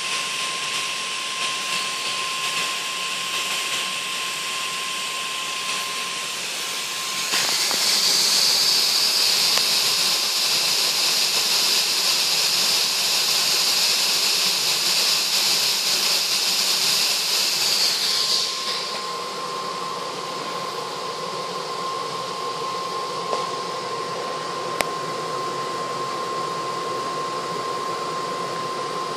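Gas hissing as it burns at a ring of brass multi-jet burners fed with an HHO gas, hexane and compressed-air mix. The steady hiss grows louder about seven seconds in and drops back about eleven seconds later, with a thin steady whine under it before and after the louder stretch, and one sharp click near the end.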